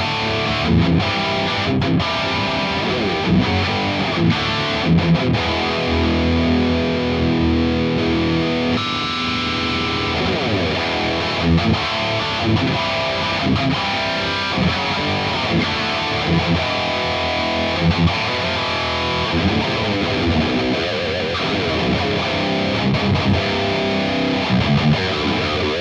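Heavily distorted electric guitar riff played through an EVH 5150 Iconic amp on its channel one into a Mesa 2x12 cabinet with Vintage 30 speakers. The first part is played with the boost pedal off. After a short break about nine seconds in, a Mud Killer overdrive pedal is switched on as a boost in front of the amp, making the amp sound more aggressive.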